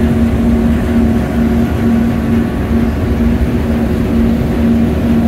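Boat's diesel engine running steadily at close range, a low drone with a pulsing hum, over water rushing along a ship's hull.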